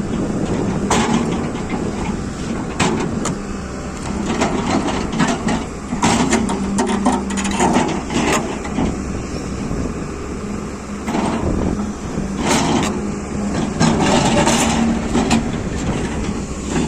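Heavy machine running with a steady engine hum, with irregular metallic clanks and knocks throughout.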